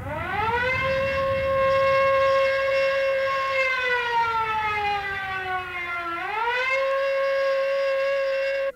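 Alarm siren sound effect wailing: it rises in pitch over the first second and holds, sinks slowly, then rises again about six seconds in and holds until it cuts off suddenly. It sounds as a missile launch countdown is suspended.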